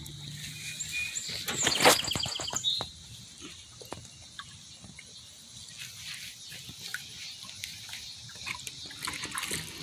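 Labrador puppy splashing and lapping in the shallow water of a plastic kiddie pool as it snaps at floating beetles: soft, irregular small splashes and wet clicks, with one sharper, louder splash-like sound about two seconds in. A faint steady high insect hum runs underneath.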